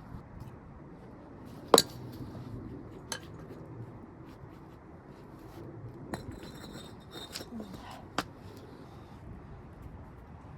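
Pavers clinking and knocking against each other as they are set down into place. One sharp clack comes about two seconds in, followed by several lighter clicks.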